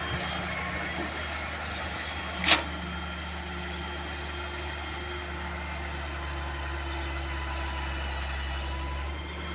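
Excavator's diesel engine idling steadily, with one short sharp knock about two and a half seconds in.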